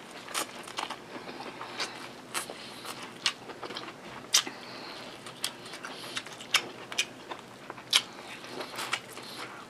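Close-miked biting and chewing of corn on the cob: sharp, irregular crunchy clicks as kernels are bitten off the cob and chewed, about one or two a second.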